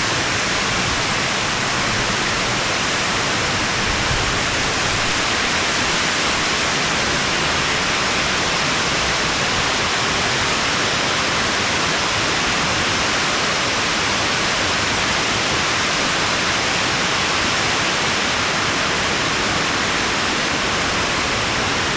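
Waterfall rushing, a steady loud wash of falling water.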